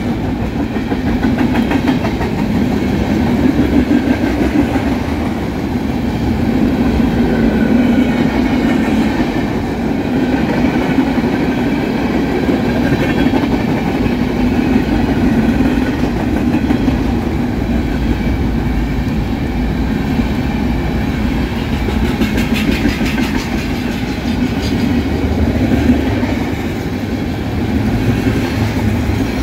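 Freight train of tank cars and covered hoppers rolling steadily past, with a continuous rumble and wheels clicking over the rail joints.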